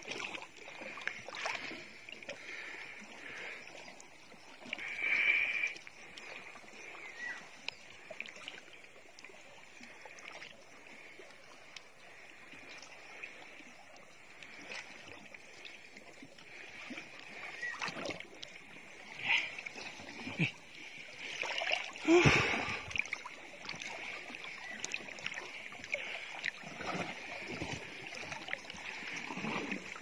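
Shallow sea water splashing and sloshing around a person wading through it, with louder splashes about five seconds and twenty-two seconds in, over a faint steady high hiss.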